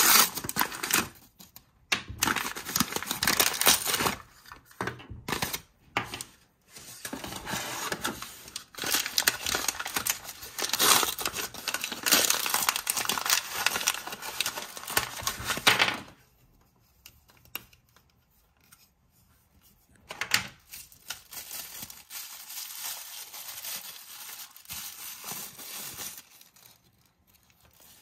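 Crumpled brown kraft packing paper crinkling and rustling as it is unwrapped from small plastic toy pieces by hand. Loud and continuous for about the first half, then much quieter, with scattered softer rustles.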